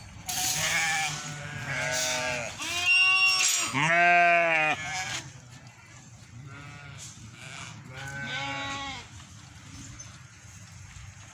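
Goats bleating: a run of calls one after another in the first five seconds, the loudest about four seconds in, then two fainter calls later.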